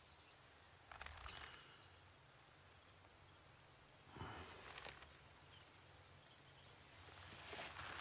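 Near silence: faint outdoor ambience with two soft, brief rustles, one about a second in and one about four seconds in.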